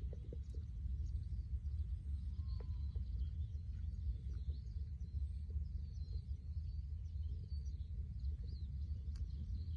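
Small birds chirping and twittering throughout, over a steady low rumble.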